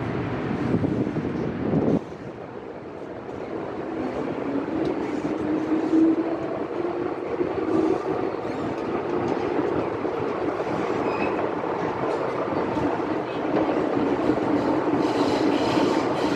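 MTR M-Train electric multiple unit running on the Tsuen Wan Line, heard from inside the car: loud running and wind noise with a motor tone that rises in pitch as the train gathers speed. The noise drops suddenly about two seconds in, then builds again and grows louder and hissier near the end.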